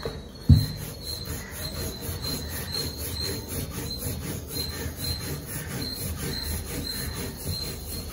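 A wooden rolling pin rolling out a disc of wheat chapati dough on a wooden tabletop in repeated back-and-forth strokes, after a single thump about half a second in as the dough is slapped down on the table.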